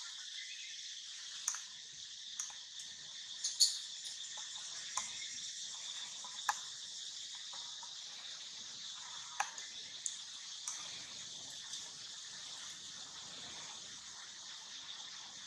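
Steady high-pitched chorus of forest insects drones without a break. About nine sharp clicks or snaps stand out above it in the first eleven seconds.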